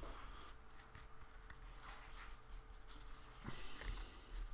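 Faint rustling and soft clicks of baseball trading cards being slid one by one off a stack held in the hands, a little louder about three and a half seconds in.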